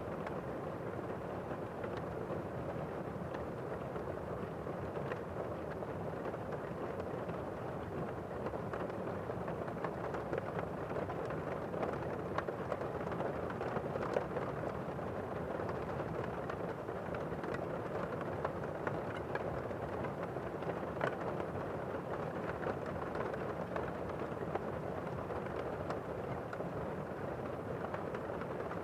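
Steady rain, muffled as if heard from indoors, a constant hiss with scattered sharper drop ticks.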